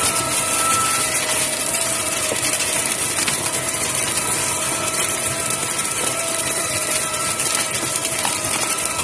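Plastic color sorter machine running: a steady machine hiss with a few faint whining tones over it.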